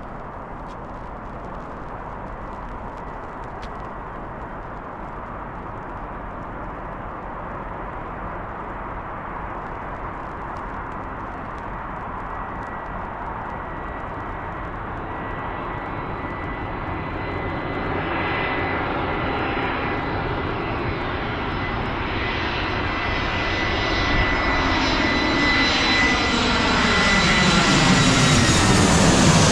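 Jet airliner approaching and growing steadily louder, with a rising engine whine and rushing noise. It passes low overhead near the end with a sweeping, phasing sound.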